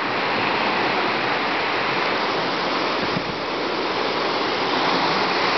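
Tropical-storm wind rushing steadily through the trees: a continuous loud hiss.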